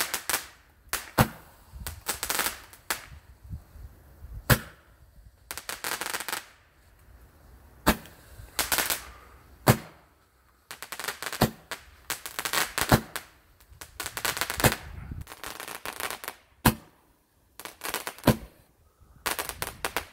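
Black Cat 10-shot Roman candle firing its shots one after another: sharp pops a second or two apart, with bursts of rapid crackling between them.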